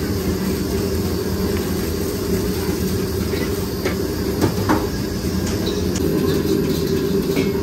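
Gas wok burner on a hawker stove running with a steady rushing hum. A couple of light metal clinks come about halfway through.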